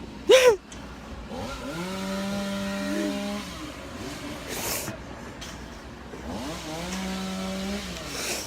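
A chainsaw is throttled up twice. Each time its engine note rises, holds steady at full revs for one to two seconds, then drops back to idle. Near the start there is a brief, loud cry with falling pitch from a person.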